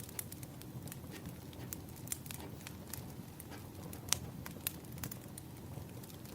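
Firewood burning, crackling with irregular sharp pops over a low steady rush; the loudest pop comes a little after four seconds in, with another about half a second later.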